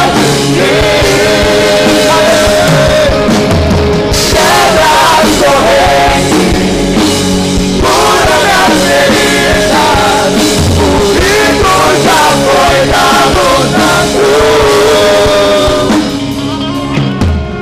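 Live worship band playing a rock song, with several singers singing into microphones over drums and keyboard. The music drops in level near the end.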